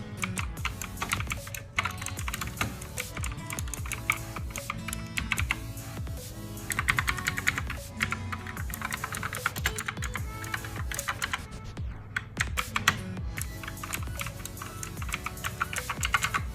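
Fast, continuous typing on a K28 mechanical keyboard with clicky blue switches, really loud, over background music.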